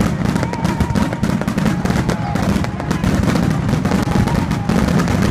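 Aerial firework shells bursting in a dense barrage: many bangs and crackles in quick succession, overlapping into a steady low din with no pause.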